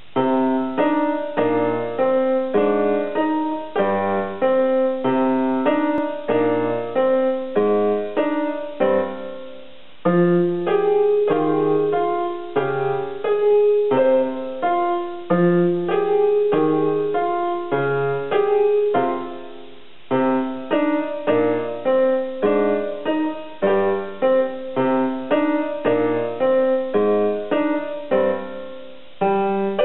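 A child plays a simple boogie tune on a portable electronic keyboard in a piano voice: a bass line under a melody of short notes, in phrases broken by brief pauses about ten and twenty seconds in.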